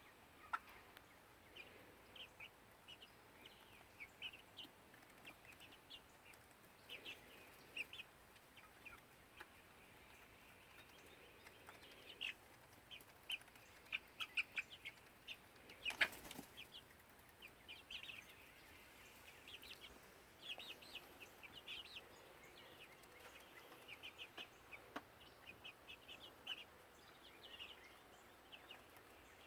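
Hens making soft, short, high calls on and off throughout, with one sharp crack about halfway through.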